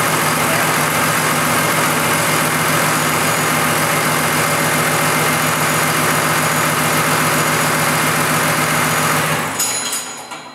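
Diesel engine on an open test stand idling steadily, then cutting off near the end.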